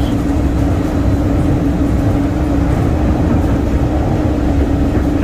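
Inside a moving Skylink automated people-mover train: the steady rumble of the running car, with a constant hum.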